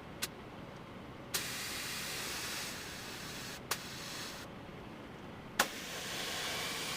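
Air spray gun spraying a light texture coat, its hiss coming in three spells, each starting with a sharp click of the trigger.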